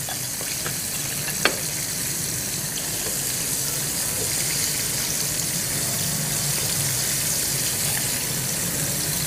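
Steady sizzling hiss of food cooking in a pan on a gas hob while it is stirred, with one light click about a second and a half in.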